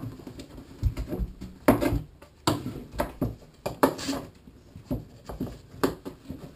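Plastic pipe and plastic elbow fittings knocking and clacking as they are handled on a wooden workbench, in a quick, irregular string of sharp knocks, about two or three a second.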